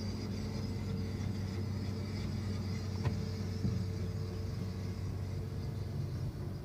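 Steady low engine drone heard from inside a car's cabin, with a couple of faint knocks about three seconds in.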